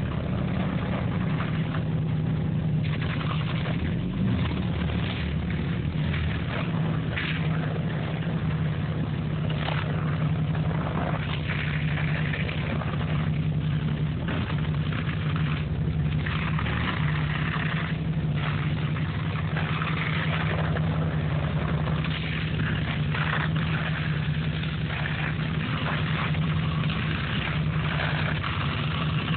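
A boat's engine running steadily at one even pitch while its pump drives a jet of water through a hose over the bow. An irregular hiss rises and falls over the drone.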